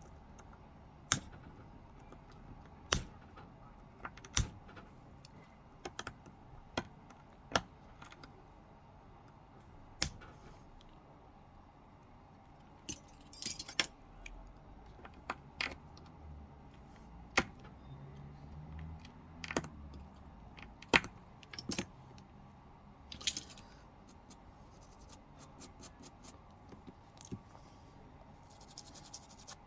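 Small hand tools working on a phone's broken camera lens glass: irregular sharp clicks and taps with a few brief scrapes, as the cracked lens glass is worked off.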